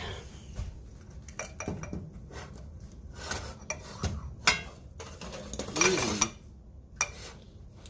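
A metal fork clinking and scraping against a glass baking dish as it cuts into lasagna, in a run of short, irregular clicks and knocks.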